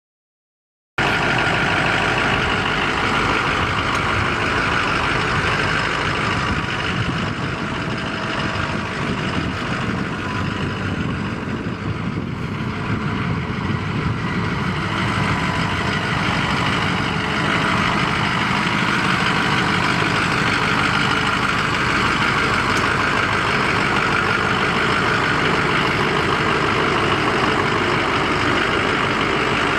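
2006 Ford F250 Super Duty's 6.0-litre V8 turbo diesel idling steadily, starting about a second in.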